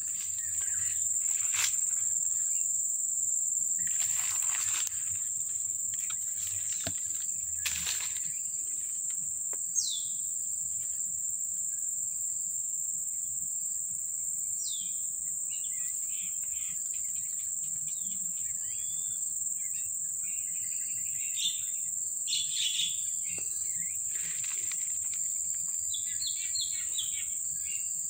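Steady, high-pitched insect drone with birds chirping and calling here and there through it, and a few brief rustles in the first several seconds.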